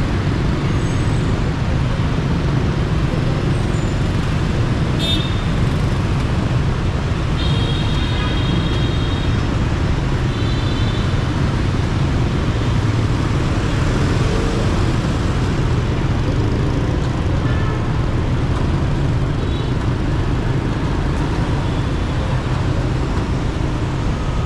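Steady city road traffic with a constant low rumble of engines and tyres, broken by a few short high-pitched horn toots about five, eight and eleven seconds in.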